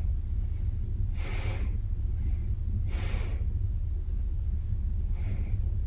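A man breathing audibly while holding a stretch: three breaths about two seconds apart, over a steady low hum.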